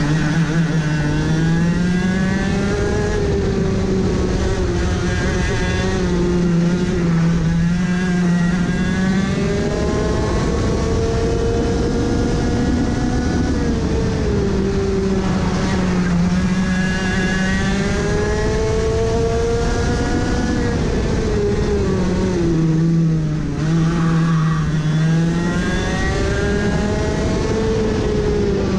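Racing go-kart's two-stroke engine heard onboard at full race pace, its pitch climbing on the straights and dropping as it brakes for corners, several times over.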